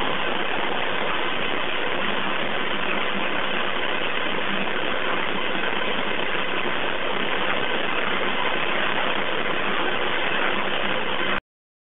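Steady hiss of an EVP audio recording's background noise, with no clear voice standing out, cutting off abruptly near the end.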